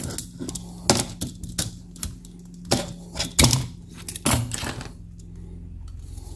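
Surgical scissors snipping through a stiff clear plastic shower-door bottom seal: a run of sharp clicks and snaps, irregularly spaced, over the first four seconds or so, then handling of the cut piece.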